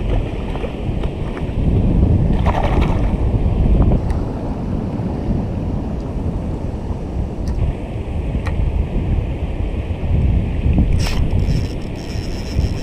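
Wind buffeting the microphone over small waves washing through shallow water at a lagoon mouth, a steady low rumbling hiss. A small splash sounds right at the start.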